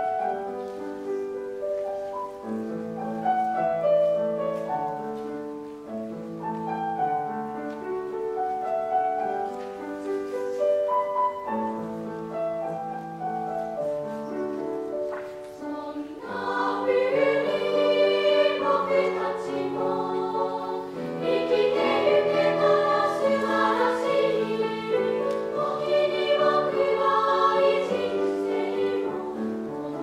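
Background music of a choir singing slow, held notes. It grows louder and fuller about sixteen seconds in.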